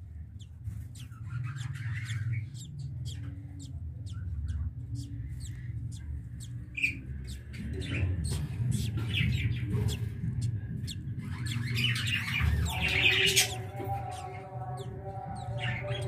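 Budgerigars in a breeding colony chirping and squawking in many short, quick calls, with a louder burst of squawking about twelve seconds in, over a low rumble.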